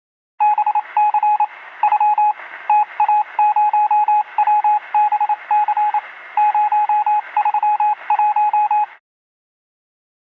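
Morse-code-style beeping: a single steady tone keyed on and off in short and long pulses over narrow-band radio static, like a radio or telegraph transmission. It starts about half a second in and cuts off suddenly near the end.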